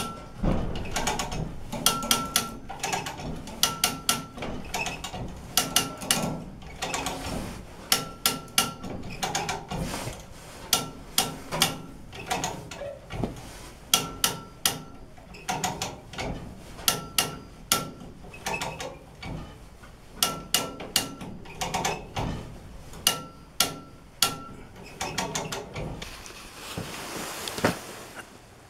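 Manual chain hoist clicking in quick bursts as its chain is pulled hand over hand, with the links clinking, lifting a Scout II body off its frame. The clicking stops near the end.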